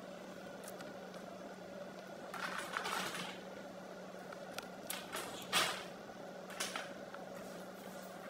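Colored pencil scratching on paper in a few short strokes, the longest lasting about a second, over a faint steady hum.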